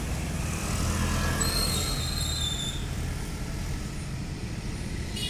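Steady low outdoor rumble of a street at night, with a high, thin squeal lasting about a second and a half that begins about a second and a half in, and a brief high squeak near the end.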